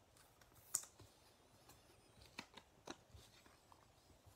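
Trading cards and their plastic pack wrapper being handled by hand: a few faint clicks and crinkles, the sharpest just under a second in.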